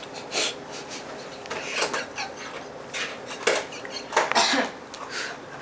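Several separate clinks and clatters of dishes and cutlery being handled, about one every second.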